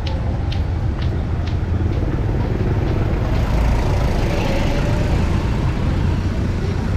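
Street traffic: vehicle engines running close by in a steady low rumble, with a few light clicks about twice a second in the first second and a half.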